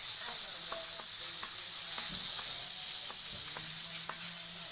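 Butter sizzling as it melts in a hot pan, ready for sautéing: a steady high hiss with scattered small crackles.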